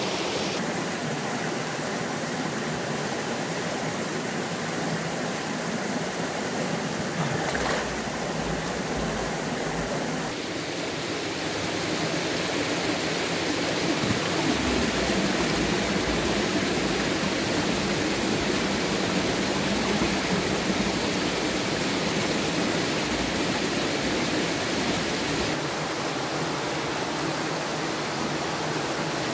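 A mountain stream rushing and splashing over rocks: a steady sound of flowing water. Its character shifts abruptly about ten seconds in and again near the end, as the recording cuts between spots along the stream.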